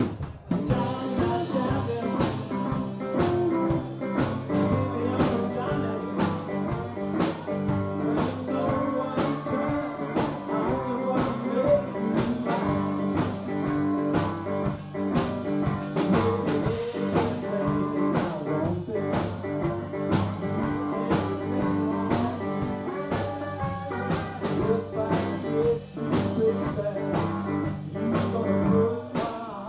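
Live blues band playing, with acoustic guitar, electric guitar and drum kit over a steady beat.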